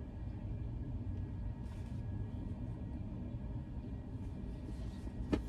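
Low steady background rumble with a faint steady whine, a brief rustle about two seconds in and a single sharp click near the end.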